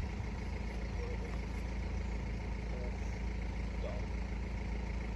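Steady low rumble of an idling vehicle engine, with a few faint short chirps over it.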